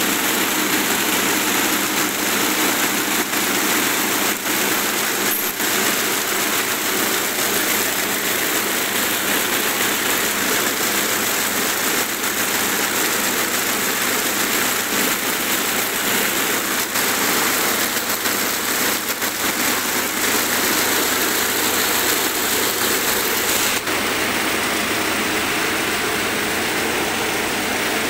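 A 16-spindle high-speed braiding machine running steadily, its spinning bobbin carriers and gearing making a loud, even mechanical noise as it braids cord.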